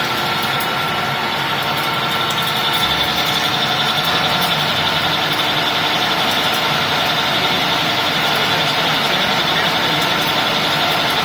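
16K25B screw-cutting lathe running steadily, its geared headstock and drive giving a constant mechanical hum and whine.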